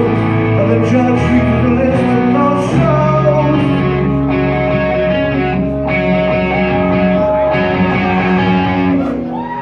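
Rock band playing live, electric guitars, bass and drums with a singing voice, heard through a phone in the crowd. The band holds a final chord that stops just before the end.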